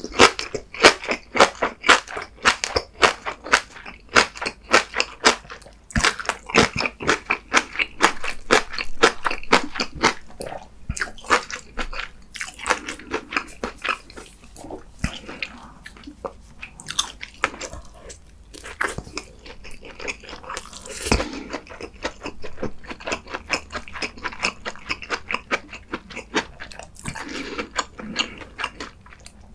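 A person chewing food close to the microphone. Quick, even chews for the first ten seconds or so, about three a second, then softer, more spaced chewing.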